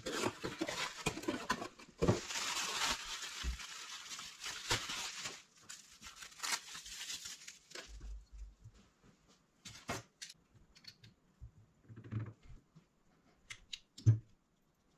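Cardboard parts box and packaging rustling and scraping as they are handled for the first several seconds, then scattered light clicks and taps of small metal turbocharger parts being picked up, with one sharper knock near the end.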